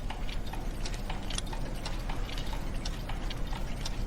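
Several clocks and watches ticking out of step, a few light, irregular ticks a second, over a steady low hum.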